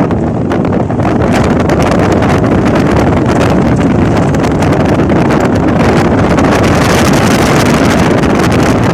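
Strong wind blowing on the microphone: a loud, steady rush with no break.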